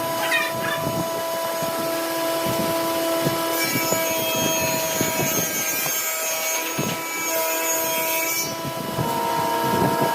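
Wood lathe running with a steady motor hum while a tool works the spinning epoxy-resin blank, making a scraping noise that turns brighter and hissier through the middle stretch.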